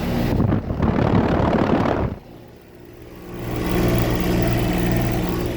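Running Rheem outdoor condensing unit: a loud rush of its fan air over the microphone for about two seconds, which cuts off suddenly, then the unit's steady low hum of compressor and fan builds back in.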